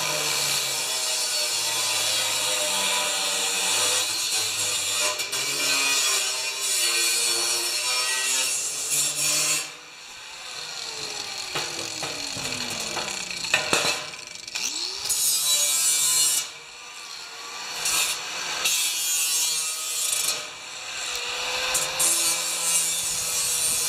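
Angle grinder with a cut-off wheel cutting stainless steel sheet metal. It cuts steadily for about ten seconds, is let off and winds down with a falling whine, then spins back up and cuts again in several shorter runs.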